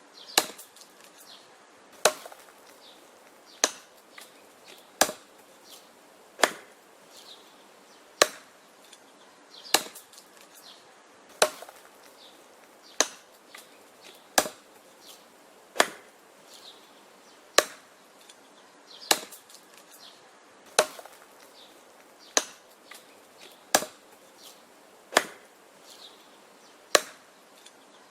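Wood being chopped: sharp, regular chopping blows, about one every second and a half.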